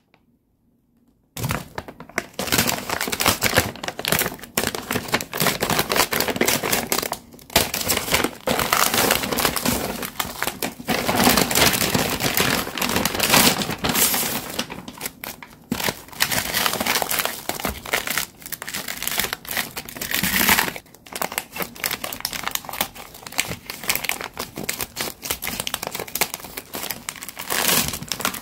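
Plastic food packaging crinkling and rustling as the plastic bag of a frozen noodle meal kit is handled and its plastic-wrapped tray is pulled out. The crinkling starts about a second in and goes on in bouts with a few short pauses.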